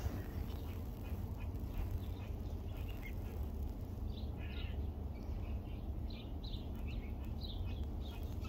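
Birds chirping in short, repeated calls that come thicker in the second half, over a steady low rumble.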